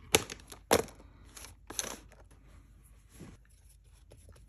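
Small sharp clicks and taps of art supplies handled on a tabletop as gouache is put out from a tube: three clicks in the first two seconds, then faint rustling and a softer tap past three seconds.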